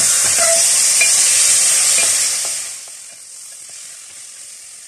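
Raw chicken pieces sizzling in hot oil in a metal pot while being stirred with a wooden spatula, with light scraping under the hiss. About two and a half seconds in, the loud sizzle drops away to a faint hiss.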